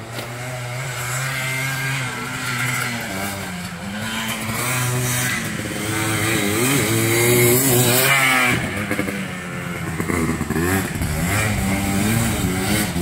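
Yamaha Blaster YFS200 quad's single-cylinder two-stroke engine through an FMF full exhaust, revving up and down repeatedly as it is ridden around the circuit. It is loudest about seven to eight seconds in, with a brief drop in revs just after.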